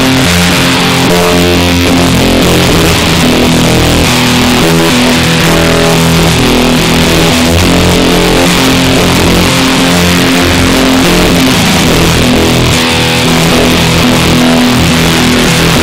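Electric guitar played loud with a heavily distorted, noisy tone: held notes and chords that change every second or so, blurring into a dense wash of sound.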